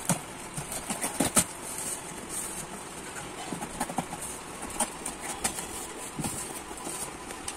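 Rustling and scattered sharp clicks and knocks of a cardboard box and plastic parts being handled during unboxing.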